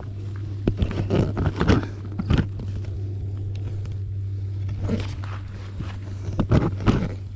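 Close handling noise: irregular scrapes and knocks as a hand brushes against the body-worn camera, in clusters about a second in, near the middle and near the end, over a steady low hum.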